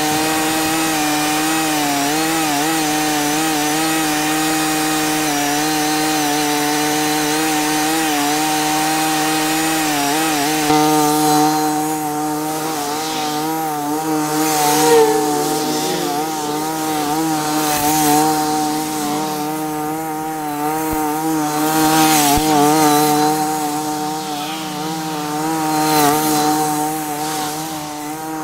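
Zero-turn mower engine running steadily. About ten seconds in, its sound begins to rise and fall in loudness.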